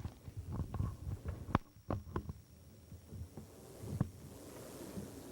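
A series of irregular knocks and low thumps, about a dozen in the first four seconds, followed near the end by a faint rising rushing noise.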